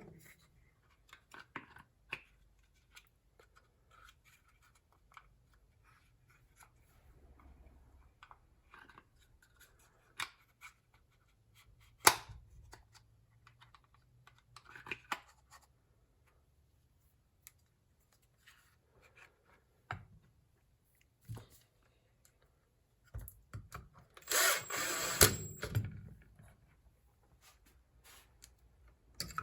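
Hand tools and small parts being handled: scattered light clicks, taps and scraping, with one sharp click about twelve seconds in and a louder stretch of rasping, scraping about two-thirds of the way through.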